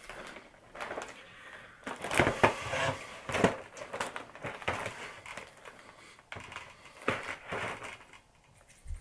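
Plastic shrink-wrap on a cardboard cookie box crinkling and crackling as the box is handled and turned over, in irregular bursts with sharp clicks.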